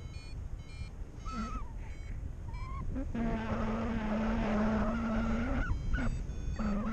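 Wind rushing over the microphone in paraglider flight, a steady low rumble throughout. A few short chirps sound in the first three seconds, and a harsh buzzing tone starts about three seconds in, stops at about five and a half seconds, then comes back briefly near the end.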